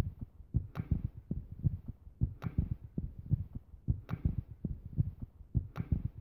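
A low, throbbing beat of quick repeated bass thumps, with a sharper hit about every second and a half to two seconds, much like a heartbeat-style tension track.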